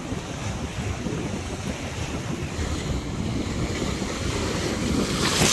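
Wind buffeting the microphone over the wash of surf on a beach, with a low rumble, and a short louder gust near the end.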